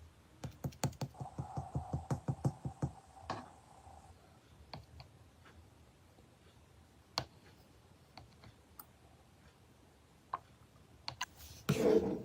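Slime being pressed and squeezed, giving a quick run of crisp clicking pops for about three seconds, then scattered single clicks, and a louder, longer crackle near the end.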